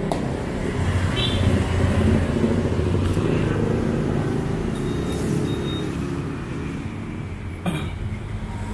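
Low, steady rumble of a motor vehicle running, swelling a little a second or two in and easing off after; a single sharp click near the end.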